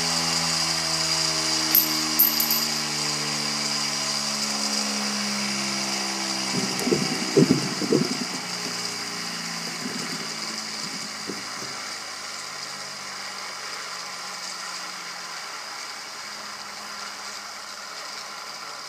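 Homemade mini lathe spindle with a heavy steel cylinder on it, coasting down after its rubber-band drive belt has broken. Its hum falls steadily in pitch and fades under a steady high whine. A burst of loud rattling knocks comes about seven seconds in, with a few light clicks around two seconds.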